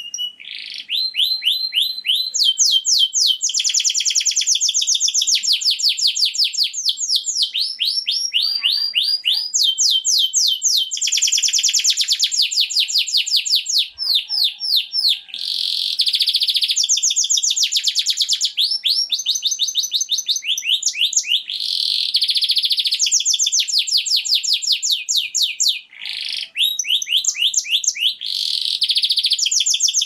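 Domestic canary singing a long, continuous song of fast trills. Each phrase is a rapid run of repeated high notes that switches to a new note every second or two, with only brief breaks.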